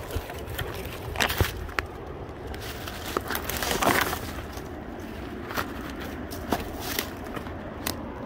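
Footsteps of a hiker walking on a trail, with uneven steps about once a second.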